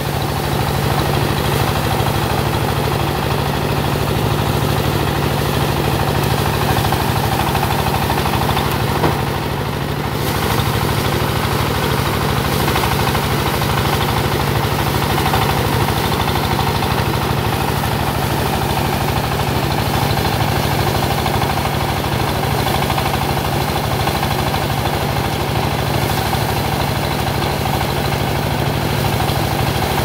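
Single-cylinder diesel engine running steadily, driving a rice thresher as bundles of paddy are fed into its drum. The loudness dips briefly about ten seconds in.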